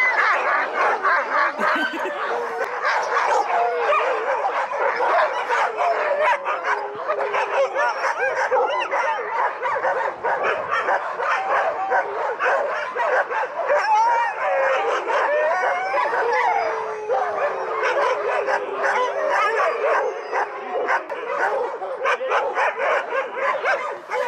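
A team of sled dogs in harness barking and yelping all at once, many voices overlapping without a break, with some long sliding howls, the clamour of dogs hitched to the sled and waiting to run.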